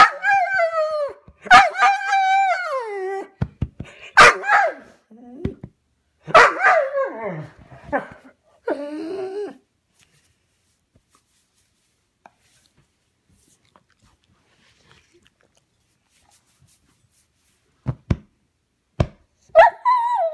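Long-haired Weimaraner howling and whining in a string of drawn-out calls that fall in pitch, then a pause with a couple of short knocks and one more falling call near the end. This is separation distress: the dog is crying for its absent brother.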